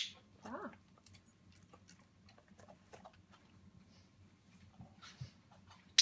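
A training clicker clicks sharply twice, once at the start and once at the end, marking the Australian shepherd's mouth going into the water bowl. A short voice sound comes just after the first click, and faint small ticks come from the dog working at the stainless steel bowls in between.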